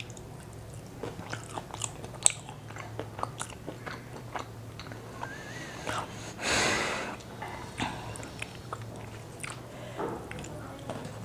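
Close-miked eating of KFC crispy fried chicken or a Zinger burger: repeated biting and chewing with crisp crackles and wet mouth clicks, and one louder, longer noisy crunch or rustle about six and a half seconds in.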